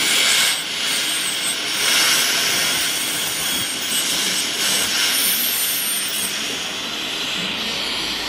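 Ultrasonic dental scaler working along the lower front teeth to strip off tartar (calculus), its thin high whine coming and going over the steady airy hiss of the dental suction tube.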